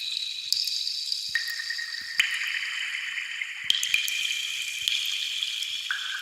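Water-drop sound effect: drops land about once a second, each with a click and a clear, high ringing tone that holds for a second or more. Each new drop jumps to a different note, so the tones overlap into a plinking, bell-like pattern.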